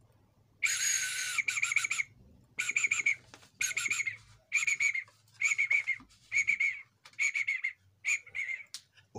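High, trilling bird-like whistling in short phrases of about half a second, repeated about once a second, eight or so times.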